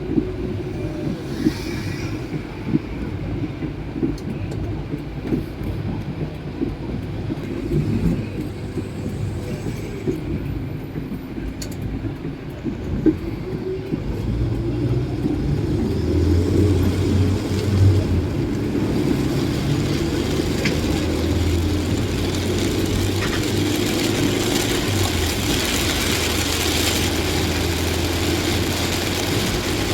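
Vehicle driving in heavy rain: a steady low road-and-engine rumble with scattered ticks in the first half, growing louder from about halfway, with a stronger hiss of rain and wet road.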